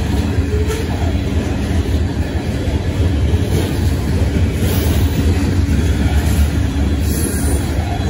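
Train passing close by: a steady, loud low rumble of rolling railroad cars, with no horn.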